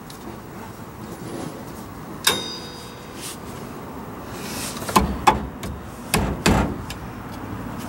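Metal clinks and knocks from drum brake shoes, springs and tools being worked into place: one sharp, ringing clink about two seconds in, then four separate knocks in the second half.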